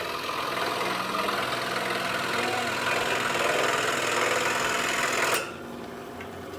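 Scroll saw running and cutting a piece of cedar: a steady buzzing hum under a hiss from the blade. About five seconds in the louder cutting noise ends abruptly, and a quieter hum goes on.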